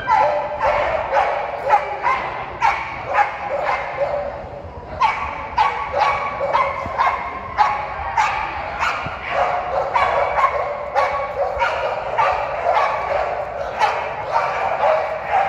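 Pit bulls barking over and over, two or three barks a second, with a short lull about four seconds in.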